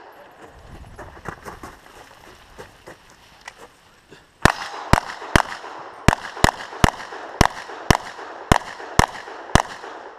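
9mm Glock 34 pistol fired in a rapid string of about eleven shots, roughly two a second, starting a little under halfway through. Before that there are only faint clicks and shuffling.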